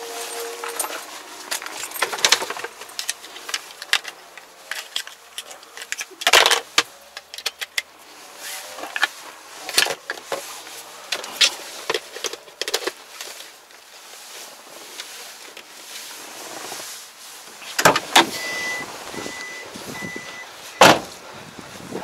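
Objects handled inside a truck cab: a plastic bag rustling, with irregular clicks, clunks and knocks. Near the end come three short, evenly spaced electronic beeps.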